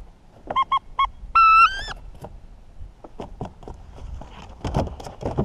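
Hunting dog whining close by: three short whimpers, then a longer whine that rises in pitch at its end. A few light knocks follow.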